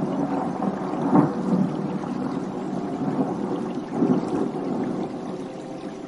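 Thunder rolling: a sudden clap at the start breaks into a long rumble that swells again about a second in and around four seconds in, then slowly dies away.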